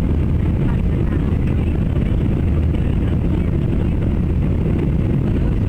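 Airplane engine droning steadily in flight, a constant low-pitched drone.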